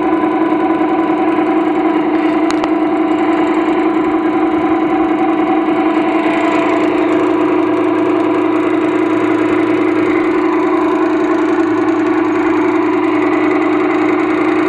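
Homemade electric boat motor running steadily, a constant hum at one unchanging pitch.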